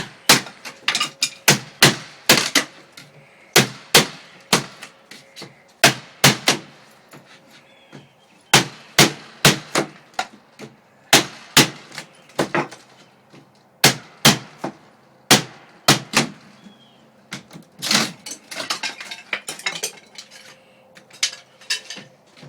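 Hammer blows on a window frame, sharp strikes in quick runs of two to four with short pauses between runs. A rougher clatter comes about eighteen seconds in.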